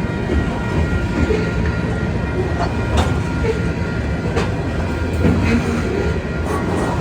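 A train rolling past: a steady low rumble of wheels on track, with occasional sharp clicks as wheels cross rail joints.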